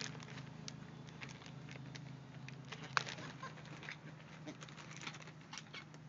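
White ibises pecking stale popcorn off the ground: irregular sharp clicks and ticks of their bills, with a louder click about three seconds in, over a steady low hum.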